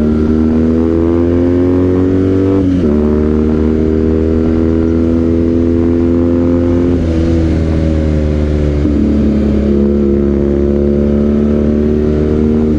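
BMW R nineT's boxer-twin engine through an aftermarket Villan exhaust, accelerating hard under throttle. The pitch climbs steadily and drops at each of three upshifts.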